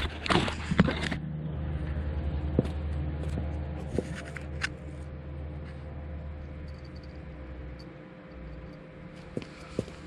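Low steady hum of a hangar, with a short rustling burst at the start and a few light clicks scattered through as a cocker spaniel puppy moves about on the concrete floor; the hum drops away about eight seconds in.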